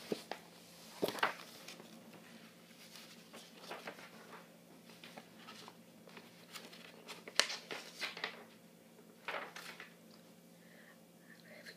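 A book being handled: pages rustling and paper crinkling, with scattered sharp knocks and rustles. The loudest come about a second in and again around seven to eight seconds, over a faint steady hum.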